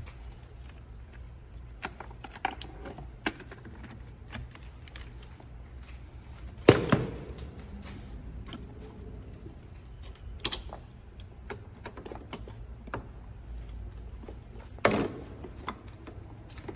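Scattered light clicks and taps, with three louder knocks about seven, ten and fifteen seconds in, over a low steady hum.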